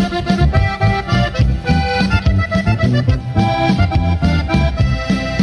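Instrumental break of a norteño corrido: accordion playing a melodic run over a steady bass-and-guitar rhythm.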